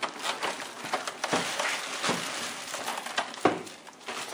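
Clear plastic bag crinkling and rustling in irregular crackles as it is pulled off a printer.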